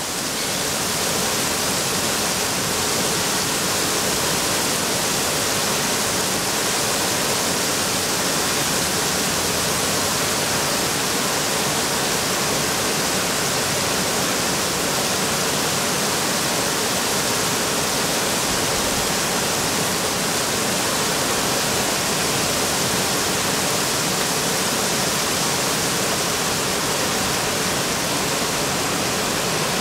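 Heavy rain pouring down in a steady, loud hiss that does not let up.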